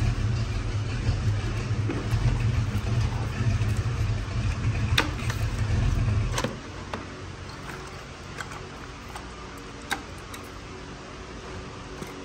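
Plastic wiring-harness connectors and clips clicking sharply a few times as they are unplugged in a Toyota Prius engine bay. A low rumble underneath drops away about six and a half seconds in.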